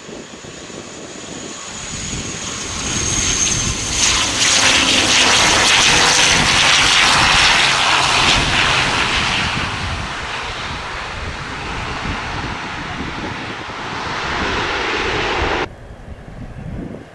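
ATR 72-600 twin-turboprop airliner landing: engine and propeller noise with a high whine swells, is loudest for several seconds as the plane rolls out along the runway, then eases off. The sound cuts off abruptly near the end, leaving faint wind.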